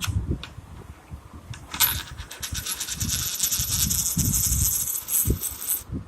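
A metal coin making a few light clicks, then about four seconds of fast metallic rattling with a thin high ringing tone that cuts off suddenly near the end.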